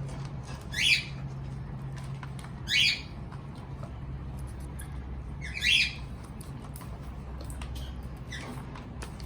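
Cockatiel squawking three times, short harsh calls a couple of seconds apart, over a low steady hum.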